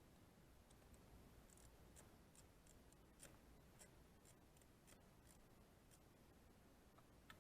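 Near silence, with a scatter of faint short clicks through the middle and one near the end.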